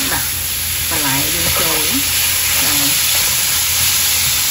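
Ground meat sizzling steadily as it fries in a hot nonstick wok, stirred around with a spatula.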